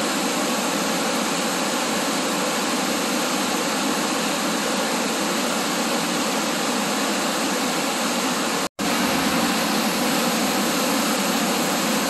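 Waterfall: whitewater chute pouring over a rock ledge, a steady, even rush of water, with a split-second dropout about nine seconds in.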